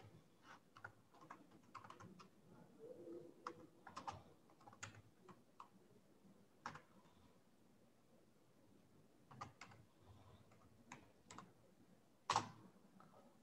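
Faint typing on a computer keyboard: scattered keystrokes, a pause of about three seconds in the middle, then a few more keystrokes and one louder click near the end.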